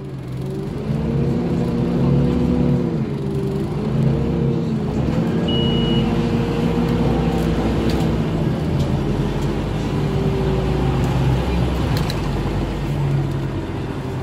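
Scania DC9 8.9-litre five-cylinder diesel of a Scania OmniCity bus, heard from inside the passenger saloon as the bus pulls along: the engine note climbs, dips briefly about three seconds in, climbs again and then holds steady. A short high beep sounds about halfway through.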